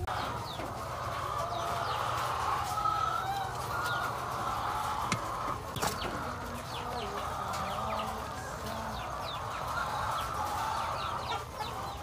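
Backyard chickens clucking, with short chirping calls over a steady busy background.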